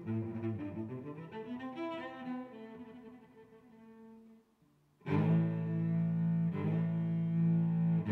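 Background music played on bowed strings, led by low cello-like notes. The phrase fades out about halfway through, and after a brief gap a louder passage starts with a sustained low note.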